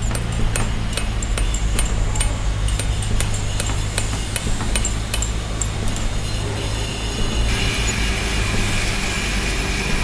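Hammer tapping stone paving setts into a gravel bed: quick sharp clinking strikes, about three or four a second, that stop after about five seconds. About seven seconds in, a machine starts a steady running noise with a high whine. A steady low hum lies underneath throughout.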